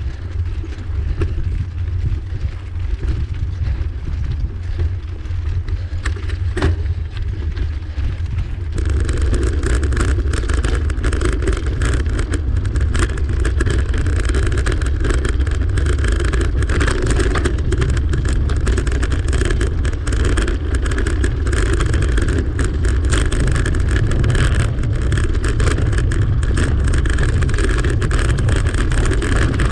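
Rumble and rattle of a bicycle rolling over cobblestones, mixed with wind on the microphone. About nine seconds in it gets louder and rougher, with dense rattling.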